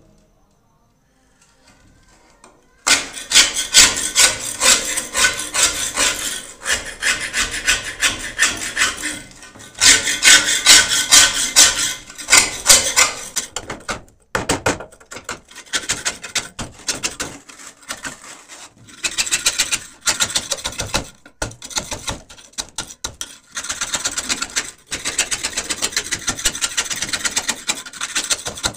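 A flat steel scraper blade scraping caked rust and dirt off a rusty steel shovel blade, in rapid back-and-forth strokes. The scraping starts about three seconds in and comes in runs with short pauses.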